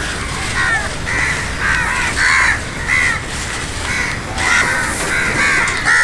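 A flock of house crows cawing, many harsh calls overlapping one after another.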